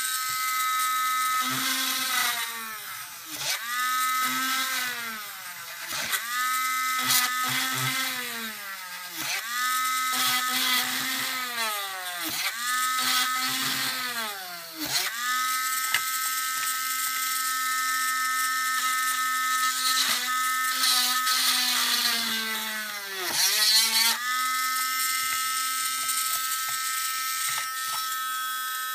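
Small handheld electric mini drill whining steadily, its pitch sagging and recovering about nine times as the bit is pressed into the hard plastic car body shell to drill a row of holes along the cut line, with a longer unloaded stretch in the middle.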